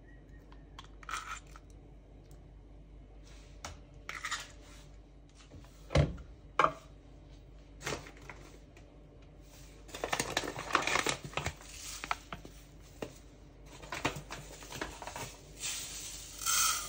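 Kitchen handling sounds: light clicks of an eggshell cracked and pulled apart over a steel bowl, two sharp knocks about six seconds in as things are set down on the counter, then paper rustling and tearing as a bag of sugar is opened.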